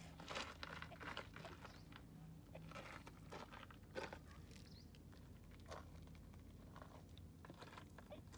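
Near silence, broken by faint scattered crunches and clicks of gravel shifting underfoot, the loudest about four seconds in.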